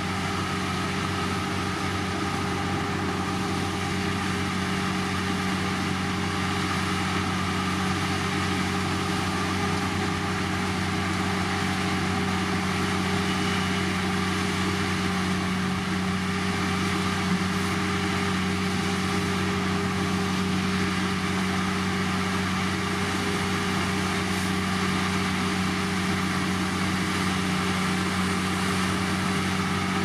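Heavy diesel engine of road construction machinery running at a steady speed, a constant drone that doesn't change pitch.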